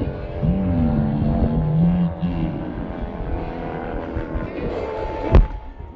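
A motor vehicle engine revving, its pitch rising about half a second in and holding for a couple of seconds over a rumbling background, then a single sharp knock near the end.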